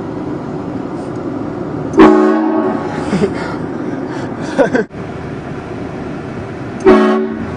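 Two short, loud blasts of a multi-tone train horn, one about two seconds in and another near the end, each a single held chord lasting under a second, over a steady background rumble.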